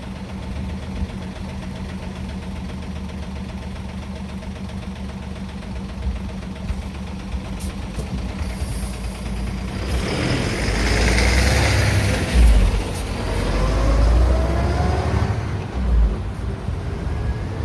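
Road traffic: a vehicle engine idling steadily, then about ten seconds in vehicles pull away and pass with a louder rumble and rising engine notes as they accelerate. Another vehicle starts accelerating near the end.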